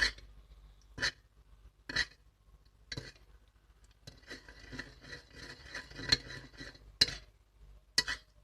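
A spoon stirring salt into a cup of olive oil, clinking against the side of the cup about once a second. Midway there are a few seconds of quicker, lighter scraping and tapping.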